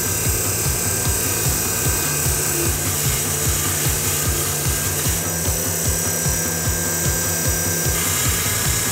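Bench grinder with a wire brush wheel running steadily while rusty steel engine mounts are pressed against it: the wire bristles scratch across the metal, cleaning off surface rust and roughening the steel so paint will stick.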